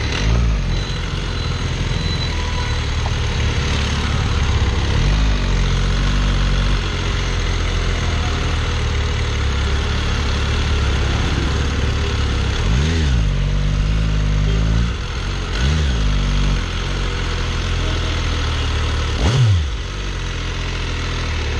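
MV Agusta F3's inline-three engine running under a moving rider, a steady note broken by a few short revs that rise and fall, the sharpest near the end.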